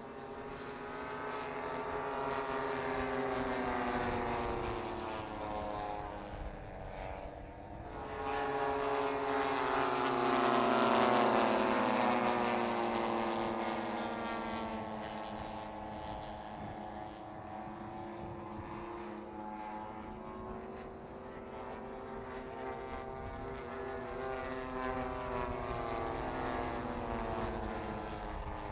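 Propeller engines of several large-scale radio-controlled WW2 fighter models flying overhead, their pitches weaving together. About eight seconds in, one comes by closer and louder, and its pitch slides down as it passes.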